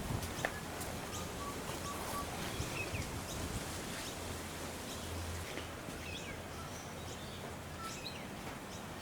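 Outdoor ambience: faint scattered bird chirps over a steady low background noise, with a few light clicks near the start.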